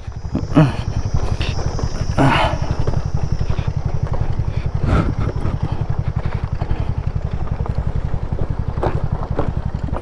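TVS NTORQ 125 scooter's single-cylinder engine running steadily under way on a rough track, with a few short knocks and rattles as it goes over stones.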